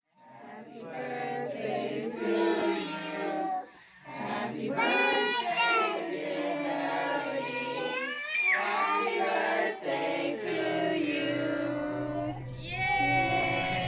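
A song sung in a high voice, in long phrases broken by short pauses about four and ten seconds in.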